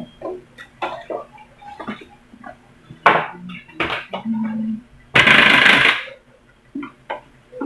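Plastic speaker cabinet being handled and turned over on a workbench: a series of knocks and clicks, and about five seconds in a loud scraping rush lasting under a second.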